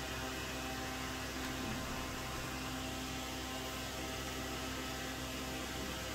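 Steady electrical mains hum with many evenly spaced overtones, over a constant background hiss.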